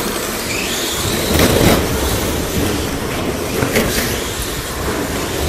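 Radio-controlled short course trucks racing on an indoor carpet track: a steady mix of motor whine and tyre noise, with one motor whining up in pitch as it accelerates about half a second in. A few sharp knocks from the cars hitting boards or landing.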